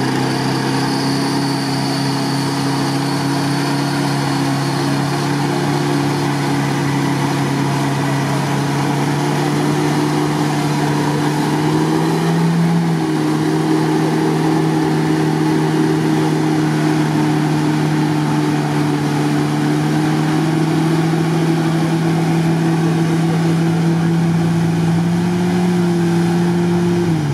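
Suzuki Samurai's engine held at high revs as the 4x4 claws through deep, sticky swamp mud. The revs step up a little about halfway through and fall away sharply at the very end as the throttle comes off.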